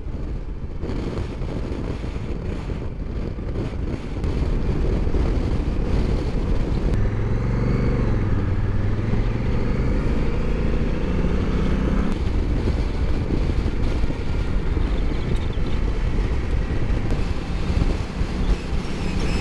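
Honda Africa Twin's parallel-twin engine running as the motorcycle rides down a gravel road, with a steady rush of wind and tyre noise. It gets louder about four seconds in, and the engine pitch rises and falls between about seven and twelve seconds in.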